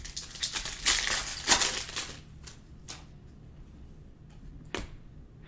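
Glossy Panini Mosaic trading cards slid and flicked against each other as a stack is flipped through by hand: a rapid rustling, clicking run for about two seconds, then a few single clicks as cards are moved one at a time.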